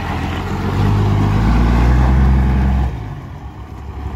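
12-valve 5.9 Cummins turbo diesel running with a steady low drone. It drops off sharply about three seconds in.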